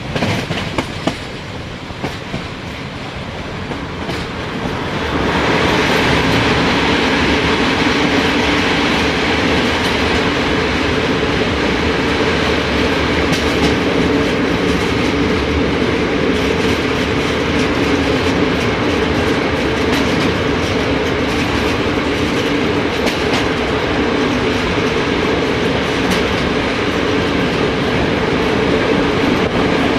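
Train wheels rolling on the rails with a clickety-clack, a steady running noise that grows louder about five seconds in and then holds, with a steady hum running through it.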